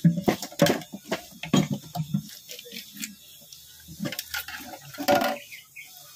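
Steel oil pan being pried and worked loose from a Toyota 1C engine block: irregular metal clanks, knocks and scrapes, with a cluster of hard knocks in the first two seconds and another about five seconds in.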